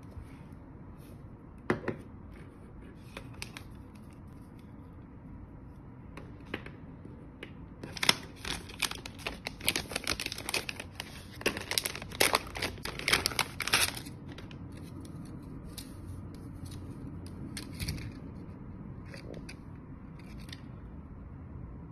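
Thin plastic mailer bag crinkling and rustling as it is handled, a dense run of crackles lasting about six seconds near the middle. Before and after it come scattered light clicks and taps of small plastic parts and cables being handled.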